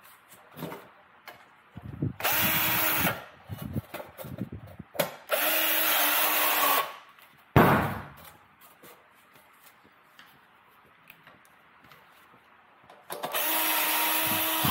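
Power drill driving screws into sheet metal, in three runs of about a second and a half each. A single sharp knock comes about halfway through.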